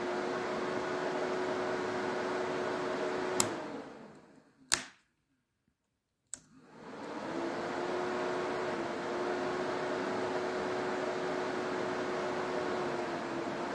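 Electric radiator cooling fan of a 2001 Polaris Sportsman 400 running with a steady hum. A few seconds in it winds down and stops among sharp clicks of the handlebar kill switch, then spins back up and runs steadily again as the switch is worked. The fan cutting in and out shows a bad contact in the worn engine stop/run kill switch that feeds it.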